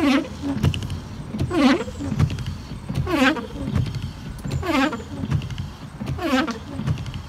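Car windscreen wiper blades squeaking across the glass, one squeal with each sweep about every second and a half, the pitch dipping and rising each time. The blade rubber has gone hard from sitting in sunlight, so the blades squeak even after their worn tips were cut off.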